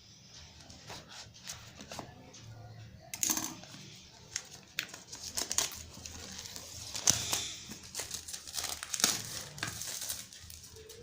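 Phone packaging being handled and opened: crinkling and tearing with scattered small clicks and taps, sparse at first and busier from about three seconds in.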